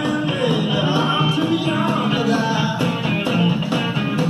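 Rock band recording with a singer and guitar, played back from a cassette tape on a Sanyo stereo cassette deck through a Marantz 2230 receiver and Bose speakers, heard over the room.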